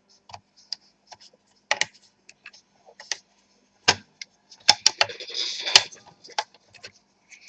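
Irregular sharp plastic clicks and snaps as a laptop's plastic palm rest is pried away from its metal bottom cover, with a scraping rustle around five seconds in.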